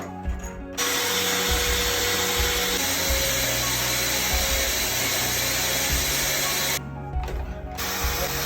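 A power tool running loudly in two long stretches, with a one-second pause about seven seconds in, over background music with a steady beat.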